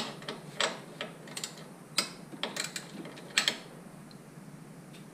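Irregular sharp clicks and taps of hands working plastic and metal parts at the alternator's positive-terminal connection in an engine bay, about eight in all at uneven intervals.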